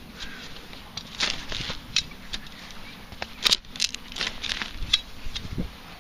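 Footsteps through short grass with irregular rustles and clicks, a sharper knock about halfway through and a dull thud near the end.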